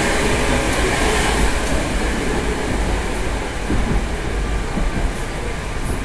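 Inside a moving Moscow Metro 81-765/766/767 train car: the steady running noise of the wheels and running gear, with a few faint high clicks and rattles scattered through it.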